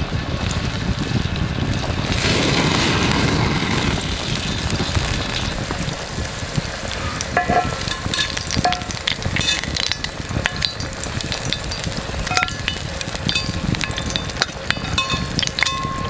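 Garlic slices frying in oil in an iron frying pan: a steady sizzle with many small pops and crackles, louder for a stretch about two seconds in.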